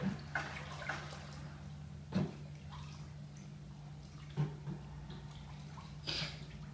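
Shallow bathwater splashing as a person moves about in a bathtub: a few separate splashes, about two seconds in, about four and a half seconds in, and a longer one about six seconds in, over a steady low hum.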